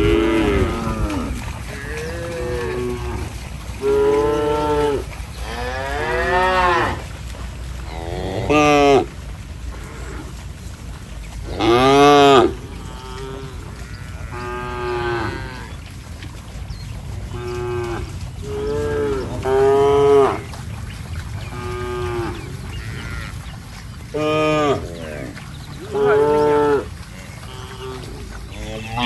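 Cattle mooing repeatedly, several animals calling one after another every second or two, some calls long and loud, over a steady low rumble.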